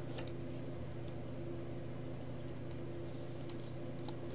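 Steady low electrical hum of room tone, with a few faint rustles of a trading card being handled in a clear plastic holder, near the start and again about three and a half seconds in.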